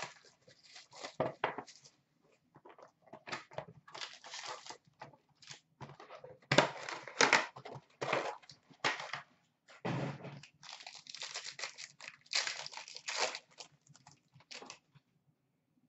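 Foil trading-card pack wrappers and a cardboard card box being handled and opened, crinkling and tearing in irregular bursts, louder a little before halfway and again about three-quarters through.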